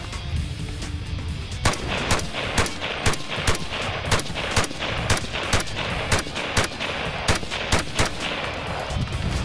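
Colt CR-Pro competition rifle, an AR-15-style semi-automatic, firing a quick string of single shots, about two a second, beginning a little under two seconds in, over background music.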